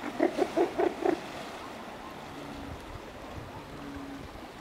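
Northern elephant seal calling: five quick, low pulses in just over a second, then steady surf and water noise.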